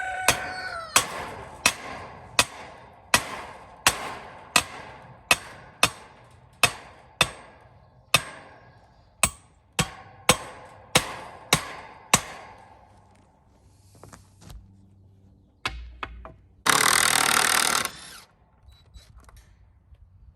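Steel T-post being driven into the ground with a post driver: about eighteen ringing metal strikes, roughly one every 0.7 seconds, that stop after about twelve seconds. A loud rushing noise lasting about a second follows near the end.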